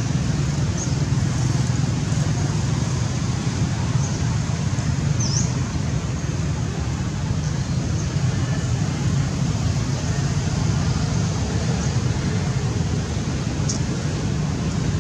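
Steady outdoor background rumble with no change over the whole stretch, and a few faint, short high chirps scattered through it.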